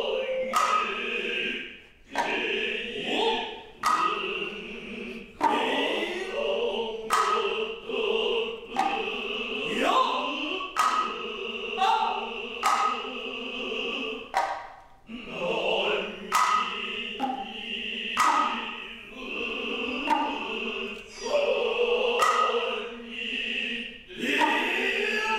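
Noh hayashi ensemble playing hayafue entrance music: the nohkan bamboo flute's shrill tone over sharp strokes of the kotsuzumi, ōtsuzumi and taiko drums roughly every second, with the drummers' drawn-out vocal calls between the strokes.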